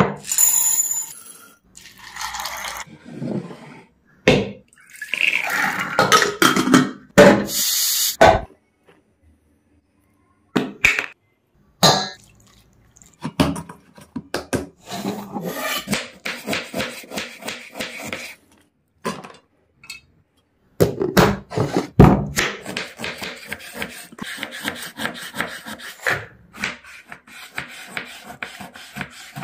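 A string of close-up kitchen sounds separated by short gaps: water splashing as a hand swishes in a glass bowl near the start, dough being pressed in a steel bowl around the middle, and a knife slicing through tomato onto a wooden chopping board near the end, with quick small taps.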